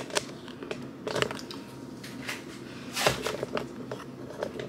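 Handling noise: a few soft, scattered clicks and light rustles, with a somewhat louder click about three seconds in.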